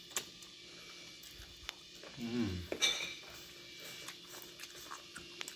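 Close-up eating sounds of a meal taken by hand off banana leaves: scattered small clicks of chewing and lip smacks, a brief falling hum a little after two seconds in, then a sharp smack.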